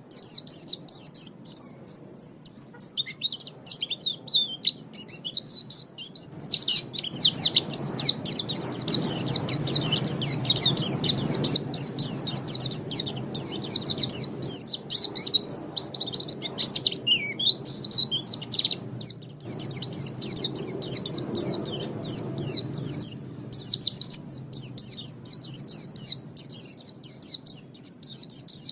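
White-eye (pleci) singing a fast, continuous, high-pitched twittering song of quick chirping notes, with only brief pauses.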